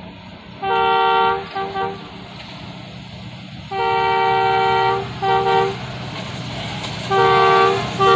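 Diesel locomotive's horn sounded in three groups as the train approaches at speed, each group a long blast followed by one or two short ones. Under the horn, the low rumble of the oncoming train grows louder.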